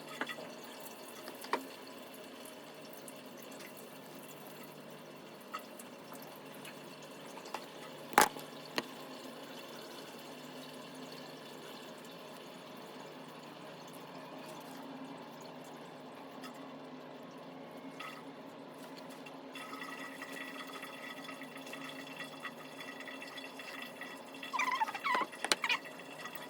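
Faint, steady background noise with a few sharp clicks and taps, the loudest about eight seconds in. Quiet voices come in near the end.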